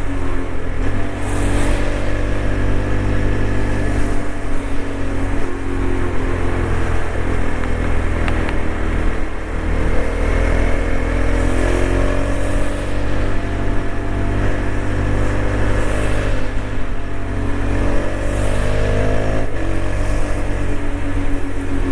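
TVS Apache RTX 300 motorcycle's engine and exhaust at highway speed, heard from on board over wind and road noise. The engine note swells and sags as the rider opens and eases the throttle, then drops sharply near the end.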